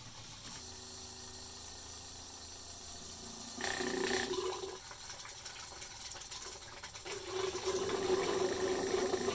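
Electric fuel pump running and drawing liquid through, with the sound of flowing, splashing liquid: the pump still works. There is a louder burst about four seconds in, and the pump gets louder and steadier from about seven seconds on.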